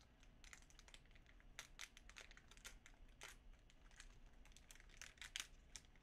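1992 Topps baseball cards being handled and flipped, with faint, irregular crinkling and light clicks.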